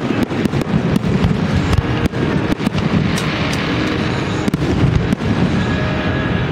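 Fireworks display: aerial shells bursting in rapid succession, many sharp bangs close together over a dense rumble.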